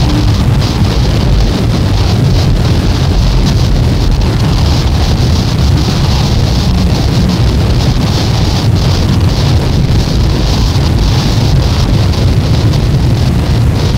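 Loud, unbroken wall of noise from a noise-music cassette track: a heavy low rumble under a band of hiss, with no beat, melody or pitch.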